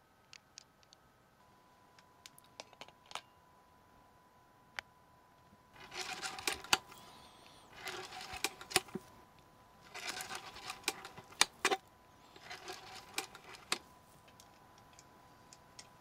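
Keystone A-7 16mm film camera's spring-wound clockwork mechanism worked by hand, giving four bursts of dense ratcheting clicks and whirring, each a second or two long, after a few scattered handling clicks.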